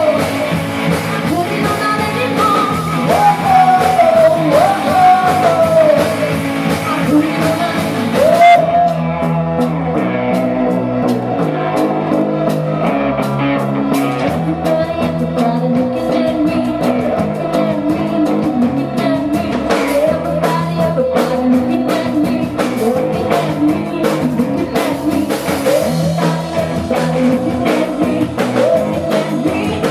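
A live rock band is playing: a lead singer over electric guitar and a drum kit. About eight seconds in, the bright top of the mix drops away and the song carries on with steady drum hits.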